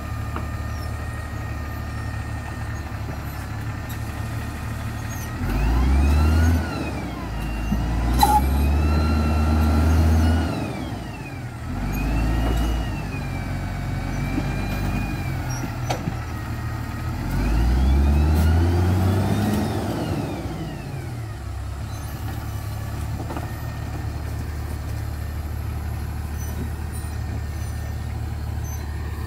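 Motor grader's diesel engine running at idle, revved up four times as the machine strains to climb out of a mud rut; each surge rises and then falls in pitch before dropping back to idle. A single sharp knock about eight seconds in.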